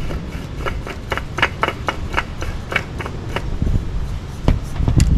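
Light irregular clicks and scraping from a spin-on oil filter being turned onto its mount by hand, about two or three clicks a second, with a couple of heavier knocks near the end.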